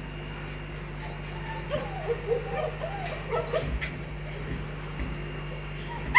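White Swiss Shepherd puppies whining and yipping: short high cries that rise and fall, starting about two seconds in and coming thick and fast, over a steady low hum.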